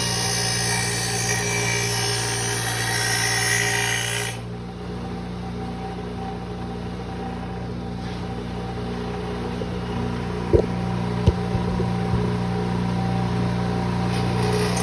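6-inch bench grinder motor running with a steady hum while a steel lawnmower blade is ground against the wheel, a hiss that stops about four seconds in when the blade comes off the wheel and starts again near the end. Two sharp knocks come a little over halfway through.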